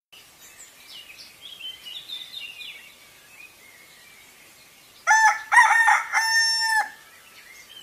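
Small birds chirping faintly, then about five seconds in a rooster crows once: a loud cock-a-doodle-doo lasting about two seconds.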